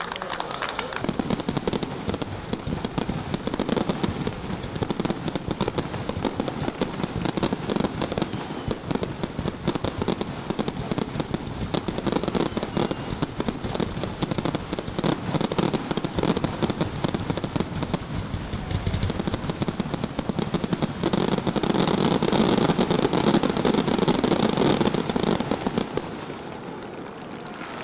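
Fireworks display going off: a dense, continuous stream of small bangs and pops from fountains and bursting shells. It gets louder a few seconds before the end, then falls away just before it ends.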